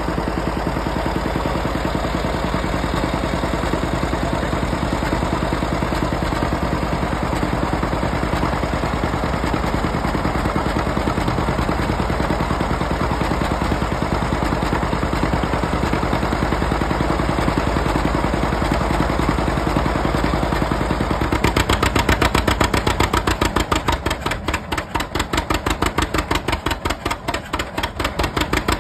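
John Deere B two-cylinder engine running steadily under load, turning a cold John Deere 730 two-cylinder diesel over through a flat belt. About 21 seconds in the sound changes to a loud, rapid pulsing beat as the 730 diesel catches and fires.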